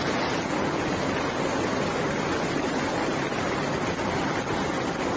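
Torrent of floodwater rushing down a street: a steady, dense rush of water.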